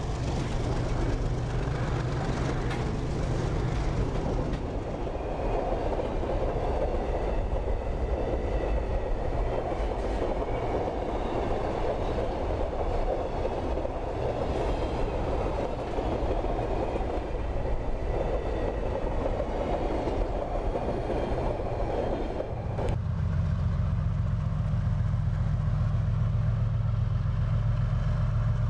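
Freight train's steel hopper wagons rolling past, a continuous rumble and rattle of wheels on rail. About 23 seconds in the sound changes abruptly to the low, steady engine drone of an oncoming diesel-electric locomotive.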